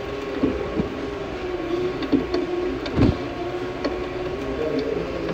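Stationary exercise bike being pedalled: a steady whir that wavers slightly in pitch, with occasional knocks, the loudest about three seconds in.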